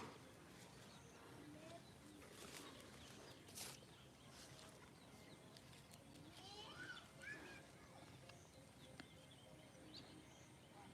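Near silence, with a faint animal call, a few rising notes about two-thirds of the way through, and a couple of soft knocks earlier.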